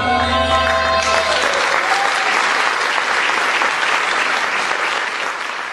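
Last sustained notes of the Odissi dance music and its low drone die away about a second in. An audience then breaks into steady applause, which fades a little near the end.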